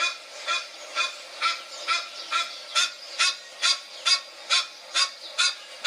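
Duck quacking over and over in a steady run, about two quacks a second.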